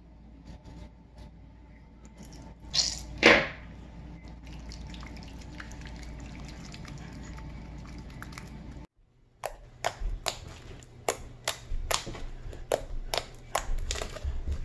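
Homemade slime being worked by hand: first a wet squishing as it is stirred in a glass bowl, with two short loud noises about three seconds in. Later it is squeezed and kneaded, giving sharp squelching pops about two or three times a second.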